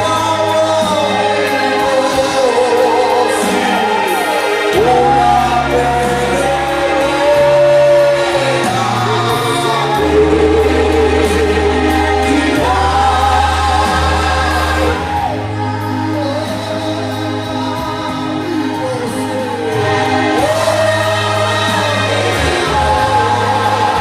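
Music with several voices singing together, choir-style, over low bass notes that each hold for a few seconds.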